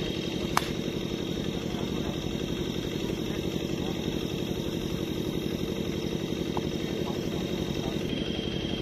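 An engine running steadily with a rapid, even pulse, and a single sharp click about half a second in.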